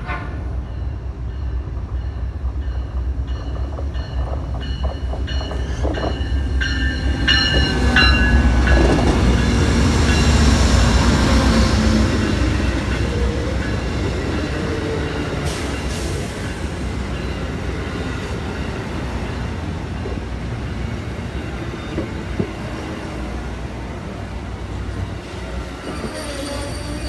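Amtrak passenger train rolling past close by, wheels rumbling on the rails with some high wheel squeal. The noise builds to its loudest about ten seconds in, then eases as the cars keep passing.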